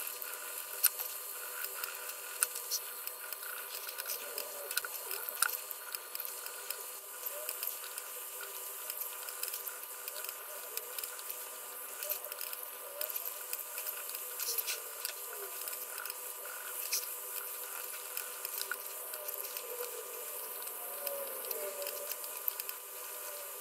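Colored pencil scratching across drawing paper in short shading strokes, with scattered light clicks, over a faint steady electrical whine.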